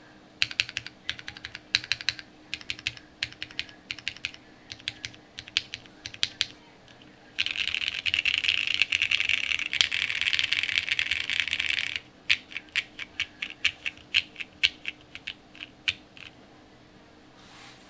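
Mechanical keyboard with lubed vintage Cherry MX Black linear switches in a polypropylene plate, O-ring mounted, under CRP Tulip R5 keycaps, being typed on. The keystrokes come separately at first. About seven seconds in they run together into a dense, louder clatter of very fast typing lasting about four and a half seconds, then go back to separate keystrokes.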